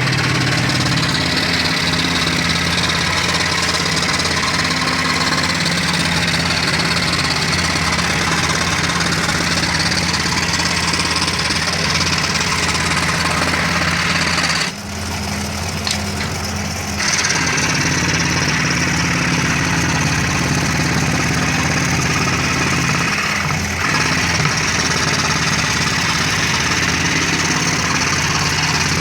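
An electric woodworking power tool runs steadily while cutting wood, its motor humming evenly, with a brief drop in level a little past the middle.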